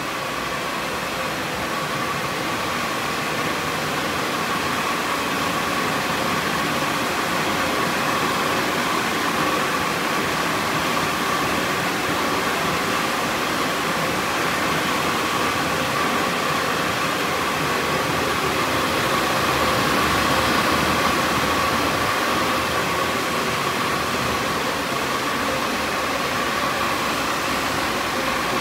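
Mark VII Merchandiser in-bay car wash's top dryer blower running steadily on its oscillating drying pass: a loud rush of air with a steady whine, swelling slightly about two-thirds of the way through.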